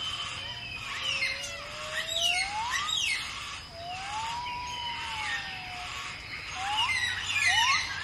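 Birds calling: many quick, falling chirps overlapping, with a long rising whistle about a second in, a long arching whistle near the middle, and a run of short rising whistles near the end.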